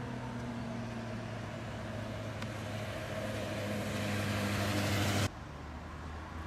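CAF Urbos 100 tram approaching, the hum and whine of its electric drive growing louder as it comes close. About five seconds in the sound cuts off suddenly to a quieter steady hum.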